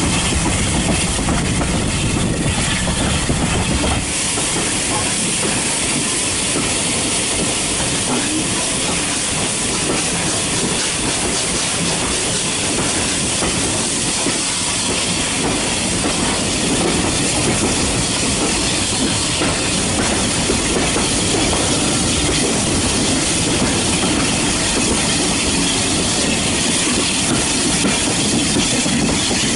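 Heritage railway train running on the rails: a steady rushing rattle of coaches and wheels on track, with a deep rumble that drops away about four seconds in.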